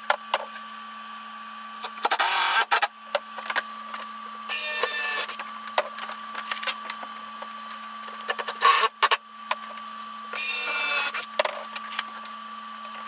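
Electric drill run in four short bursts of about a second each with a whining motor, drilling and driving screws to fix a wooden support rail. Clicks and knocks of handling come between the bursts.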